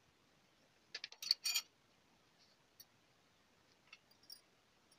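A small spoon clicking and tapping against a stainless steel plate as ground spices are spooned out onto it: a quick cluster of clicks about a second in, then a few faint ticks.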